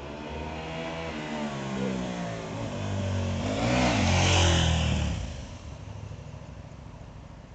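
KTM 990 Adventure's LC8 V-twin running through a GPR aftermarket exhaust as the bike rides up under throttle. It is loudest as it passes close by about four seconds in, its pitch dropping as it pulls away, and it fades quickly.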